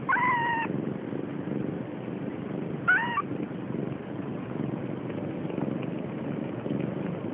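Siamese kitten mewing twice: a short, high, slightly falling mew at the start and a rising-then-falling mew about three seconds in, over a steady low rumble.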